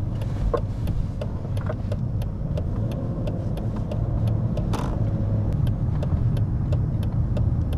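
Mercedes-Benz W220 S500's five-litre V8 running steadily at low revs as the car is driven slowly, a low even hum with faint regular ticks over it.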